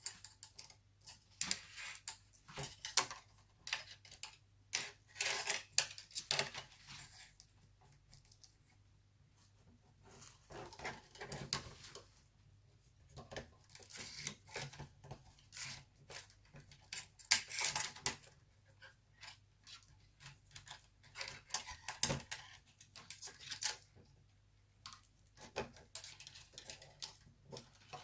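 Irregular light clicks, taps and scraping of hands working inside a laptop, unclipping the Wi-Fi antenna cables and pulling them free of their routing.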